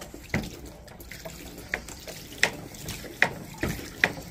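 Plastic hand pump on a children's water table being worked, water splashing and running out in spurts. Sharp, short knocks come irregularly, roughly once a second, over a steady wash of running water.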